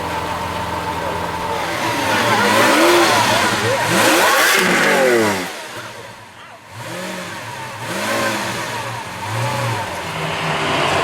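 Lamborghini Aventador LP700-4's 6.5-litre V12 revved several times, its pitch climbing and falling with each rev, loudest in the first half, dropping briefly back near idle in the middle before revving again.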